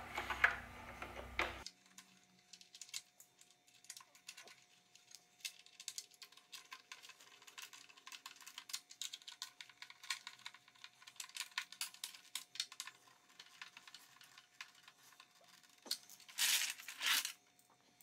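Rapid light clicking and clattering of plastic vacuum-cleaner parts from a Hoover Elite 700 upright being fitted together by hand and screwed with a screwdriver. A brief, louder rustle of plastic comes near the end.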